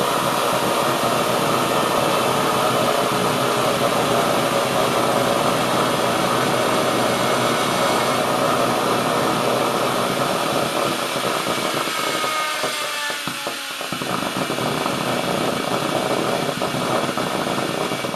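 Makita 5007NB circular saw's brushed electric motor, its gear reduction removed, running flat out with no load at close to 38,000 RPM as it is over-sped to destruction. A loud, steady whine whose pitch sags in places, dipping about two-thirds of the way through before it carries on.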